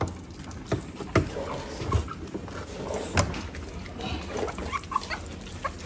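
Three-week-old American Bully puppies at a pad of wet mush: a few sharp taps in the first seconds, then from about four seconds in, short high puppy squeaks.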